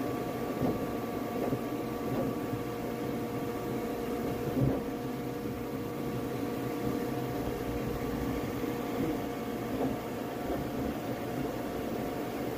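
Flashforge Adventurer 5M Pro 3D printer running mid-print: a steady whir of fans and stepper motors with a few held tones, broken by occasional light knocks, the loudest about four and a half seconds in.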